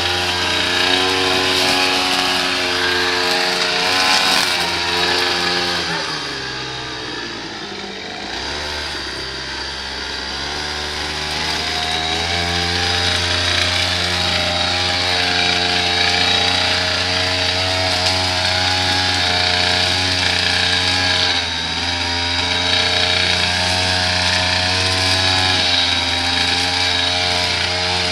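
Small two-stroke engine of handheld gardening power equipment running at high throttle. About six seconds in it eases off and drops in pitch, then revs back up around twelve seconds in and runs steadily again.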